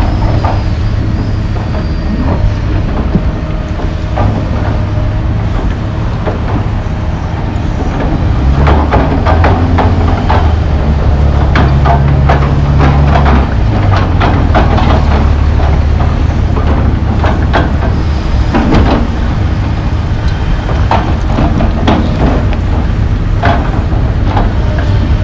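John Deere 470G track excavator's diesel engine running under load, working harder for several seconds partway through, with repeated knocks and scrapes of the bucket digging into dirt and rock.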